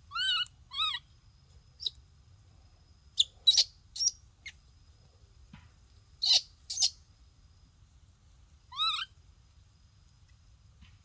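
Baby monkey crying: high, wavering pitched calls, two near the start and one near the end, with shorter sharp squeaks in between.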